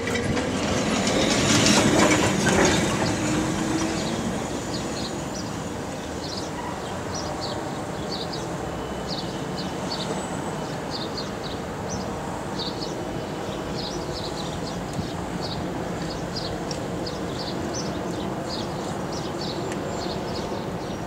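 Street traffic noise with a tram running past, loudest about two seconds in and then settling to a steady rumble. Short high squeaks repeat irregularly through most of it.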